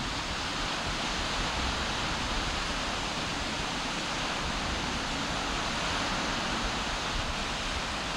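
Waves breaking on a sandy beach: a steady, continuous rush of surf.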